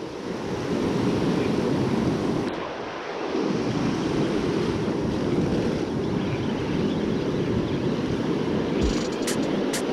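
Ocean surf breaking on a beach, mixed with wind buffeting the microphone: a steady, heavy rushing noise, strongest in the low end. A few sharp clicks near the end.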